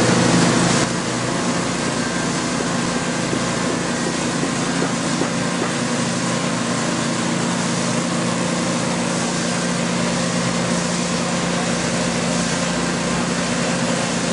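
Engine of a Somero S-840 ride-on laser screed running steadily as the machine screeds a concrete floor, a little louder for the first second.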